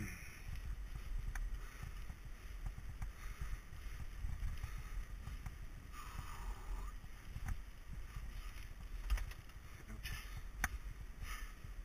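Mountain bike rolling along a gravel forest trail: a steady low rumble of tyres on gravel and wind, with a few sharp knocks and rattles from the bike near the end.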